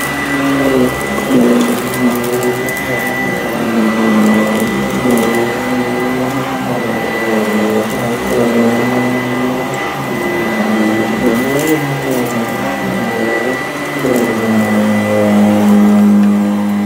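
Sanitaire SC899 upright vacuum cleaner running over a carpet entrance mat. Its motor pitch wavers up and down as the nozzle is pushed back and forth, over a steady high whine, with a gritty crunch as road salt is picked up from the mat.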